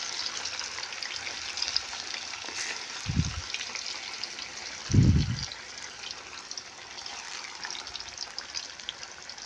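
Tofu deep-frying in hot oil in a wok: a steady sizzle with fine crackling. Two dull low thuds come about three and five seconds in, the second the louder.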